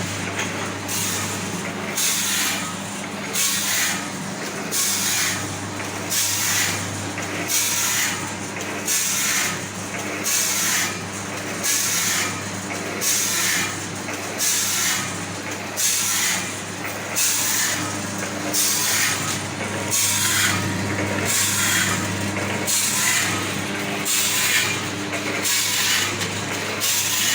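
Automatic cup-filler pouch-packing machine running through its filling and sealing cycles: a steady low hum under regular short bursts of hiss and clatter, a little more than one a second.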